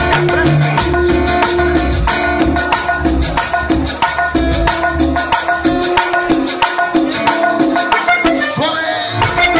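Latin dance music, cumbia in style, played loud by a DJ over a sound system: a steady beat with rapid rattling percussion strokes over a bass line.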